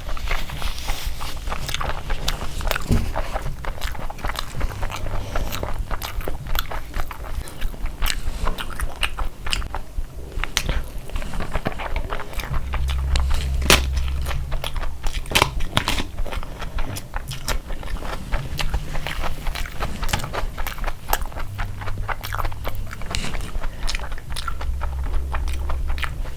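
A person eating close to the microphone: chewing and biting food, with frequent sharp, irregular crunches and mouth clicks.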